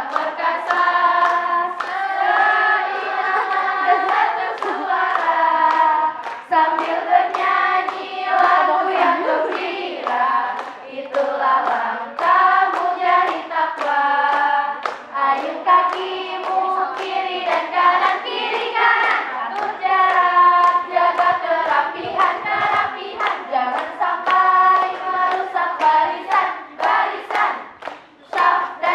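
A group of voices singing a song together, with hand claps throughout.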